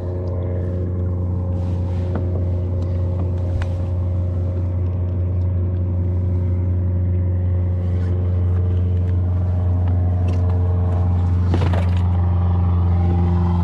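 An engine running steadily: a low, even drone that slowly gets louder.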